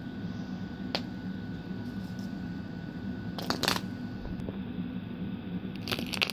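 Wooden dominoes clacking as they topple into one another: a single click about a second in, a quick run of clacks in the middle and another short run near the end.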